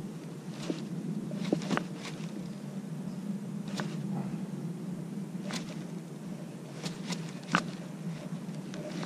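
Baitcasting reel being wound in during a jerkbait retrieve, with scattered sharp clicks and ticks from the reel and rod, over a steady low hum.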